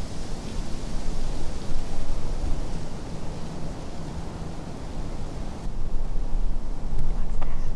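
Wind buffeting the microphone outdoors, a loud low rumble that rises and falls with the gusts, stronger again near the end, with a faint steady hum underneath.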